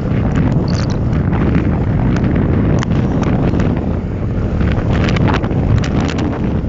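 Strong gusty wind buffeting the microphone of a camera on a moving bicycle, a loud steady low rumble. Scattered sharp clicks and rattles run through it.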